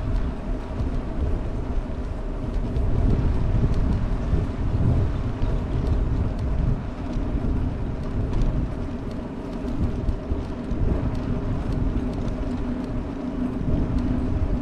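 Wind buffeting the microphone of a GoPro moving along a road: a heavy low rumble that swells and dips unevenly, over a steady hum from the vehicle carrying it.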